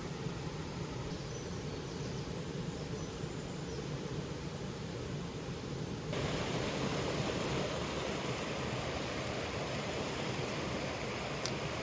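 Mountain stream water rushing steadily over rocks. About six seconds in, the sound suddenly jumps louder and brighter, and a faint click comes near the end.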